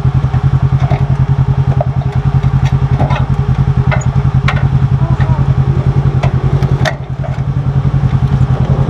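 Polaris RZR side-by-side engine idling with an even, rapid pulse, with a few sharp clicks in the middle and a brief dip in level about seven seconds in.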